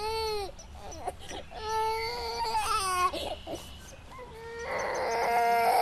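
Baby crying: a series of wailing cries, short at first, then long drawn-out wails, the last one the loudest.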